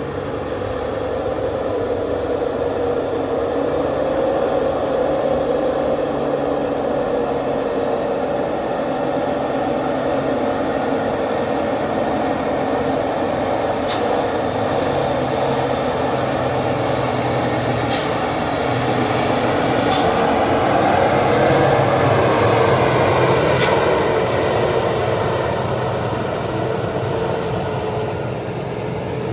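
Heavy dump truck engine running hard on a steep hill road, its drone building to a peak about three-quarters of the way through and then easing. Four short sharp clicks come in the second half.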